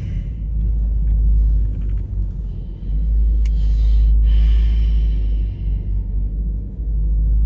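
Low, steady rumble of a car heard from inside its cabin, with a faint hiss above it; a short click a little past the middle.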